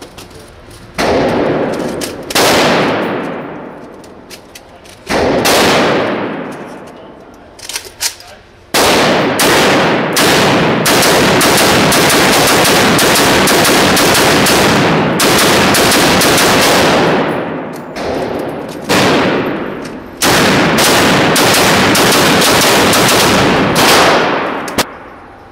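A 7.62×39 Yugoslav rifle with a muzzle brake or flash hider fitted, firing outdoors: a few single shots that echo away, then long rapid strings of shots with two short breaks.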